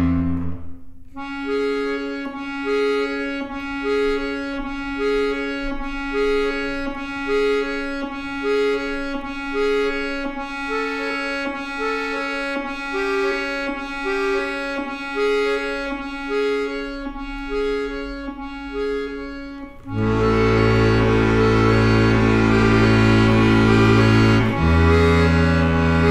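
Instrumental music: a repeating figure of short notes over a held tone, then about twenty seconds in a loud, full, low sustained chord comes in.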